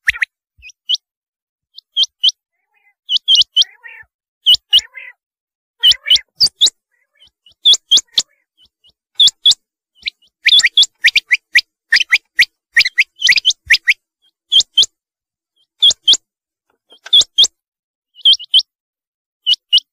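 Rain quail (black-breasted quail) calling: short, sharp, high double notes repeated about once a second, coming faster and closer together for a few seconds in the middle.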